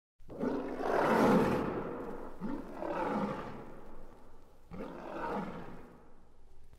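Lion roaring three times as a logo sting, each roar quieter than the last.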